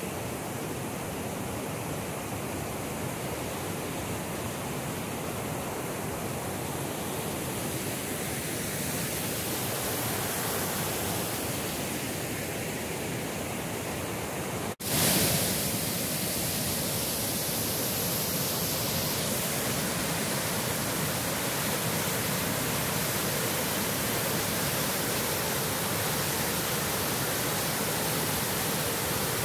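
Tahquamenon Lower Falls pouring over its rock ledge: a steady, even rush of falling water. About halfway through, the sound drops out for an instant and comes back a little louder.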